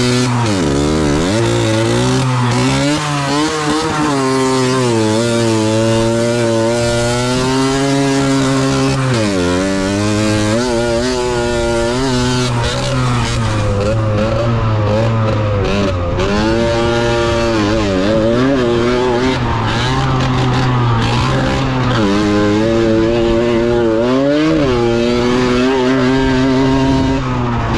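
Tuned Balkan 50 motorcycle's small two-stroke engine running hard under the rider. It repeatedly winds up in pitch and drops back sharply, several times over, as the rider shifts and closes the throttle for the bends.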